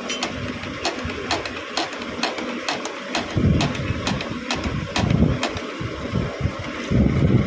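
An engine running unevenly, its low rumble coming in about three seconds in and rising and falling, over scattered light clicks.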